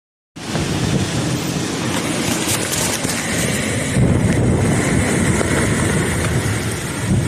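Strong storm wind buffeting the microphone: a loud, steady rushing noise with a heavy low rumble that starts abruptly about a third of a second in.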